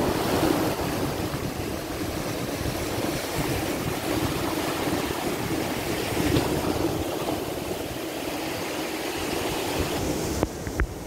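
Red Sea surf breaking and churning against the rocks at the foot of a seawall, a steady rush of water driven by strong wind, with wind rumbling on the microphone. A few sharp clicks near the end.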